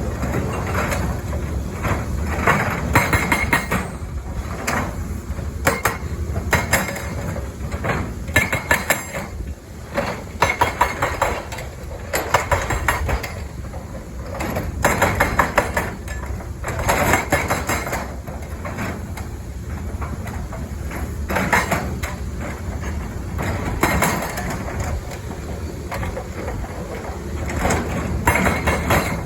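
Hydraulic breaker on a Caterpillar 320 excavator hammering in repeated bursts of rapid metallic blows, over the steady low rumble of the excavator's diesel engine.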